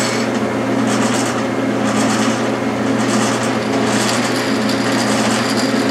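Clausing metal lathe running at 450 RPM, its spindle driving a pull gear planetary speed reducer held by a stop rod in its 4.5-to-1 gear reduction, the output turning at about 100 RPM. A steady machine hum, with a hiss that swells about once a second.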